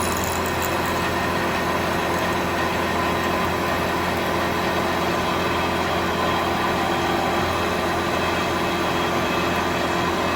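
Milling machine running steadily with a small 3/16-inch end mill taking a cut. It makes an even, unbroken hum of motor and spindle with no change in level.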